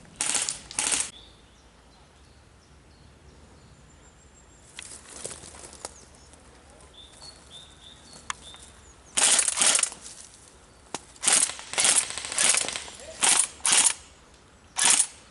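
Airsoft guns firing short bursts, several in quick succession, with the busiest spell of fire in the second half.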